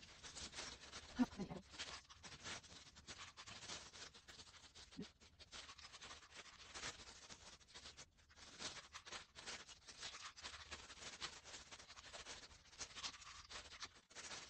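Clear disposable plastic gloves crinkling and rustling, with soft squishing, as hands pinch off and roll soft dough into balls. There is one sharper click about a second in.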